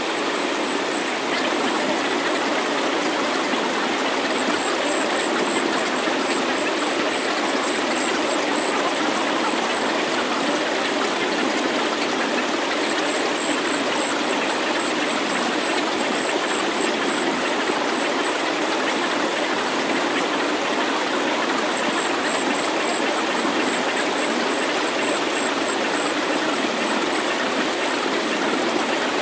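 Steady synthesized noise, an even hiss without bass, with a faint high tone that pulses and comes and goes over it: an electronic sound-healing track.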